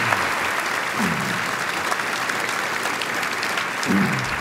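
Audience applauding steadily, with a couple of short cheers heard about a second in and near the end.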